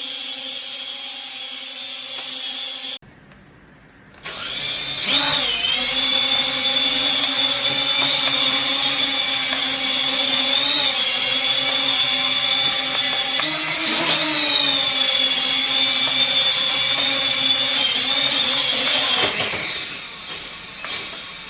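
Toy mini quadcopter drone's motors and propellers whining at a steady high pitch. The whine cuts off about three seconds in, starts again a second later and spins up, holds steady with a brief rise in pitch midway, then winds down near the end.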